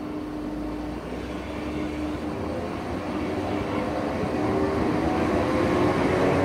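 A train at a station growing steadily louder as it comes closer, with a steady hum and, in the second half, a whine rising in pitch.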